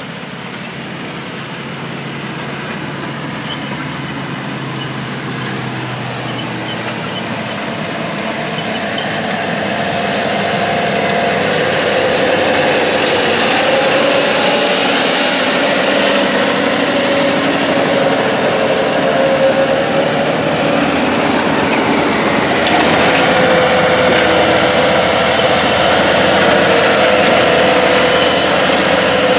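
Big John Deere four-track tractor working under load, pulling a deep-ripping subsoiler through the field, its diesel engine running steadily. The sound grows louder over the first twelve seconds or so, then holds even.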